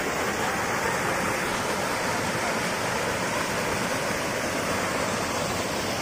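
Small waterfall cascading over rocks into a shallow pool: a steady, even rush of splashing water.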